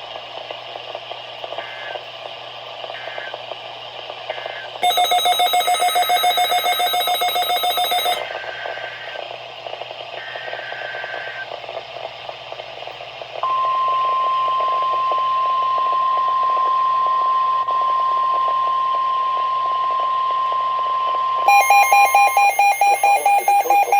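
NOAA Weather Radio alert sequence: a few faint short digital code bursts, a weather radio's loud pulsed beeping alarm for about three seconds, more faint code bursts, then the steady 1050 Hz weather alert tone for about nine seconds. Near the end of the tone, a Midland WR-400 weather radio's pulsed alarm starts beeping, a late activation.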